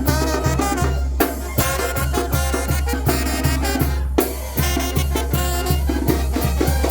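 Oaxacan wind band playing, a brass melody over a steady bass and drum beat.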